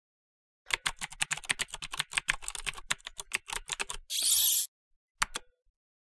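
Rapid typing on a computer keyboard, several keystrokes a second for about three seconds. Then a short, loud burst of hiss, followed by two more clicks.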